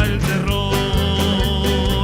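Band music with a steady beat and a long held note.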